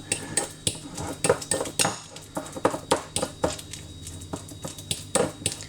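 A fork mashing a ripe banana, clicking and scraping against the dish in quick, irregular strokes, a few a second.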